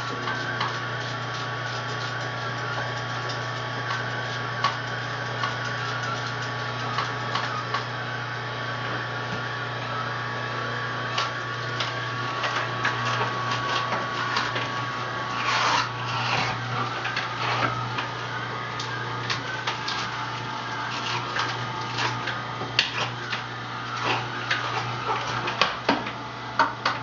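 Electric juicer motor running steadily, with a low hum, while green vegetables are pushed through it. Frequent snapping and crackling of produce being crushed grows busier in the second half.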